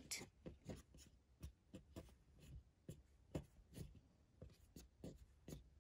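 Faint, irregular taps and soft rubbing of fingertips on a hard tabletop as hands handle and count out loops of pre-looped chenille yarn, about two or three taps a second.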